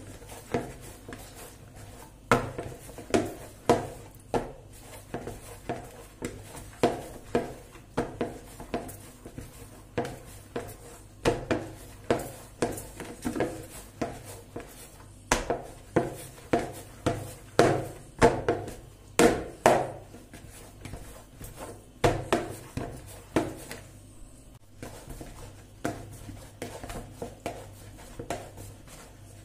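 Soft börek dough being kneaded by hand in a plastic mixing bowl: a run of dull thumps and knocks, about one or two a second, with short pauses between runs.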